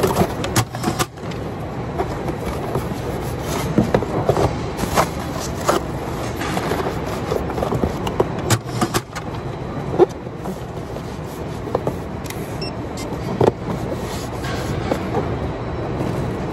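Steady machinery hum of a warehouse packing line, with scattered short knocks and taps as a cardboard box is handled and packed.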